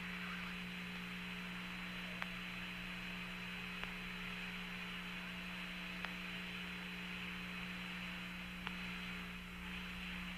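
Steady hiss and electrical hum of an Apollo air-to-ground radio channel left open between transmissions, with a few faint clicks.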